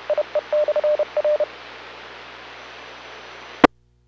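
2-meter FM repeater's Morse code identification heard through a radio receiver: a steady tone of about 600 Hz keyed in dots and dashes over radio hiss, ending about a second and a half in. The hiss carries on until a sharp click as the signal drops, then cuts to silence.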